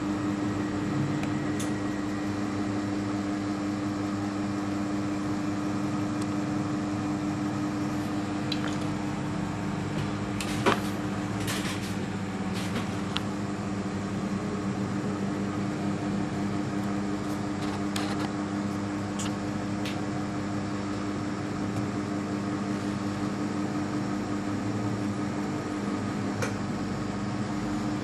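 Steady mechanical hum, like a fan or small motor running, with one sharp click about eleven seconds in and a few fainter ticks after it.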